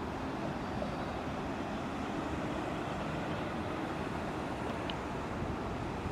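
Steady, even rumble of distant jet aircraft across an airport.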